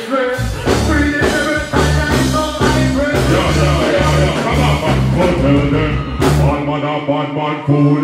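Dancehall music played loud through a concert sound system: a repeating bass line and steady beat with a male vocal over it. The bass drops out briefly near the end.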